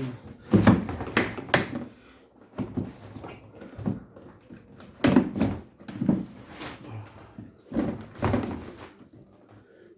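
Hard knocks and clatter of washing-machine parts being pushed and fitted onto their seats during a gearbox replacement, coming in three short groups.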